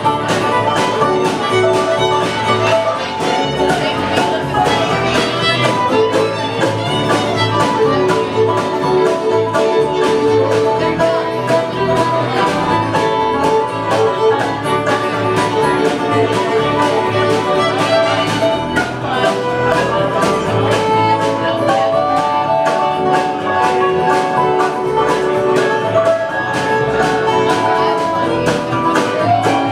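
Live bluegrass band playing an instrumental break, with fiddle, banjo and guitar, and no singing.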